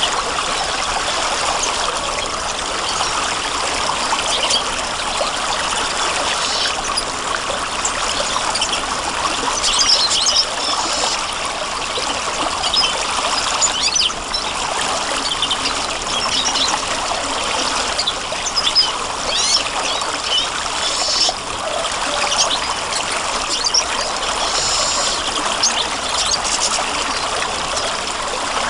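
Stream of water running and trickling steadily, with short high bird chirps now and then.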